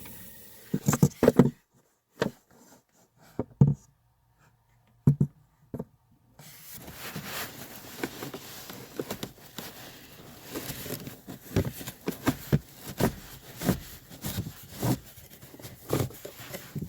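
Hands handling plastic trim and the cabin air filter under a car's dashboard: scattered knocks, clicks and rubbing, with a near-silent stretch early on before the handling picks up again.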